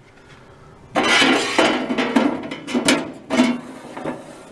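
Stainless steel parts of a Perfect Fry countertop fryer clanking and scraping against each other as they are handled and fitted together. It starts about a second in, with a few sharp metal knocks.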